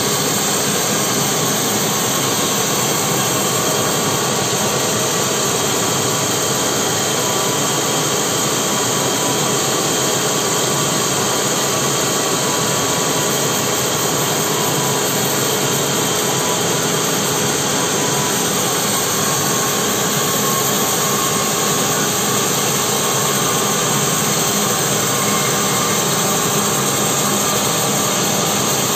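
Band sawmill running steadily, its blade sawing a wide board off a mahogany log.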